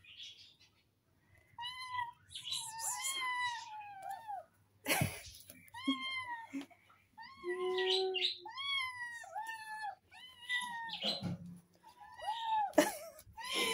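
Several kittens meowing over and over with high, arching cries, the hungry calls of kittens wanting food. A few knocks break in about five and eleven seconds in.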